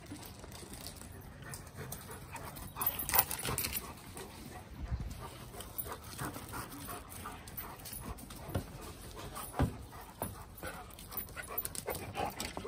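Dogs playing and chasing each other, panting, with scattered short knocks and thuds from their running and scuffling, loudest in a burst about three seconds in.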